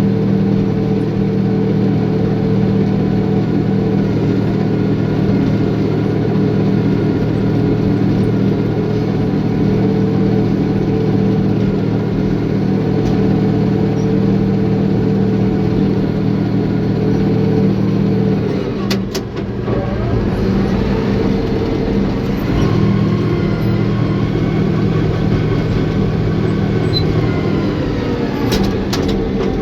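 Caterpillar bulldozer's diesel engine running steadily, its note dipping briefly about two-thirds of the way through and then picking back up, with a few sharp clanks.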